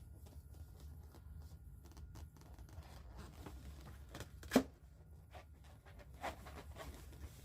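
Latex modelling balloons rubbing, creaking and being handled as they are twisted into shape, with scattered small rustles and clicks. There is one sharp snap about four and a half seconds in.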